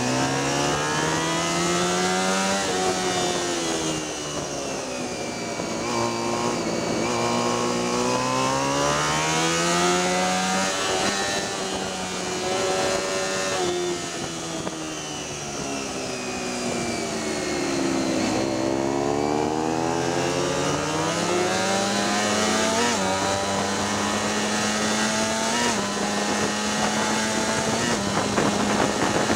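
Racing motorcycle's high-revving engine heard from the rider's seat, its pitch climbing in steps through the gears and falling away under braking, several times over, with a deep dip in revs about two thirds through before it climbs again. Steady wind rush on the microphone runs beneath it.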